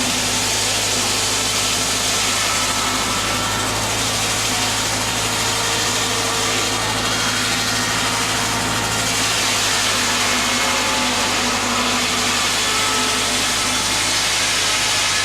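Heritage mill machinery running steadily under power: a constant engine-driven hum with a loud, even mechanical rush over it.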